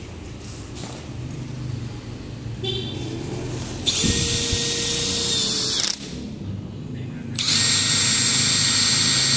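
Makita DDF489 18V brushless cordless drill with a long auger wood bit, spinning free with no load: a steady high motor whine. It runs twice, for about two seconds starting some four seconds in, then again from about seven and a half seconds on.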